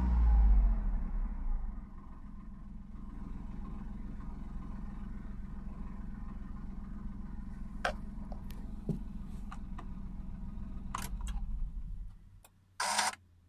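Honda S660's small turbocharged three-cylinder engine, with the car stationary, its revs falling from a rev-up to a steady idle, then switched off about twelve seconds in. A few light clicks come during the idle, and a short burst of noise follows near the end.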